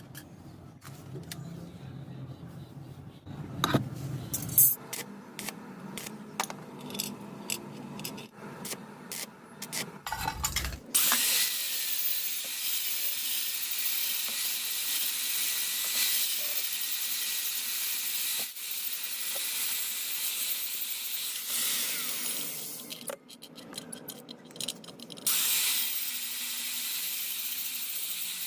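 Electric arc welding: a steady hiss starts about eleven seconds in, breaks off around 23 seconds and strikes up again about two seconds later. Before it come scattered sharp clicks and taps.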